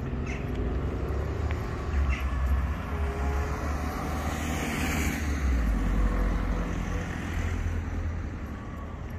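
Street traffic: a car passing along a multi-lane road, its tyre noise swelling to a peak about halfway through and then fading, over a steady low rumble of traffic.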